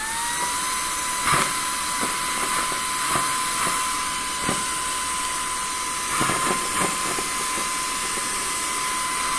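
Vacuum cleaner sucking dryer lint off a tabletop through the Hurricane Lint Lizard's long, narrow corrugated hose: a steady high motor whine over rushing air, with brief irregular ticks as bits of lint and grit are pulled in.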